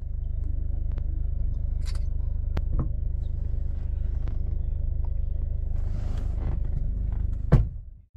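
Steady low rumble of a van on the move, heard from inside its passenger cabin, with a few faint clicks and one sharper knock near the end.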